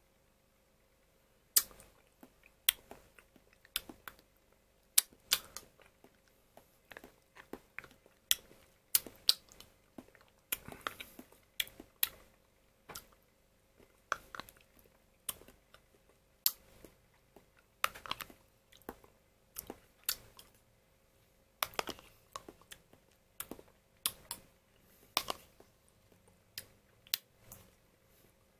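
Metal spoon scraping and clicking against the sides of a plastic yogurt cup as the yogurt is eaten: sharp irregular clicks, some in quick clusters, beginning about a second and a half in.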